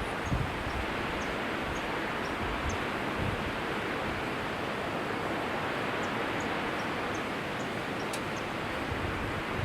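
Waterfall rushing steadily: a constant even wash of falling water, with faint short high chirps scattered over it.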